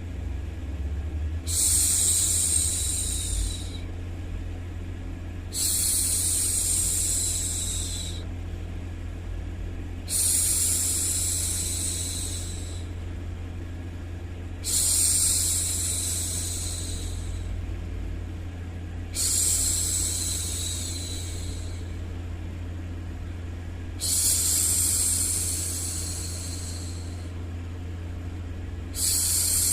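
A woman's voice making long, soothing "shhh" hushing sounds to calm a baby, seven of them, each lasting about two seconds and repeating every four to five seconds. Underneath runs a steady, low white-noise bed.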